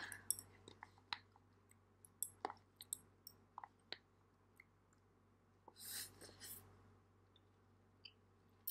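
Quiet eating sounds: chopsticks clicking and scraping in a cup of Samyang spicy instant noodles, then a short slurp about six seconds in as the noodles are drawn into the mouth, with a few soft mouth clicks after.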